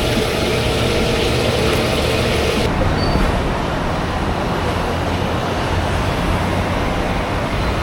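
Steady street traffic noise. Its hiss cuts off abruptly about two and a half seconds in, leaving a lower rumble.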